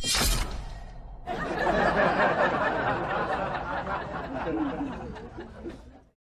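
A short sound-effect hit, then a recorded group laughing for about five seconds, fading and stopping shortly before the end.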